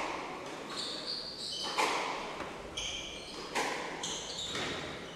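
Squash ball smacking off racket, wall and floor twice, about two seconds apart, with short high squeaks of court shoes on the wooden floor in between.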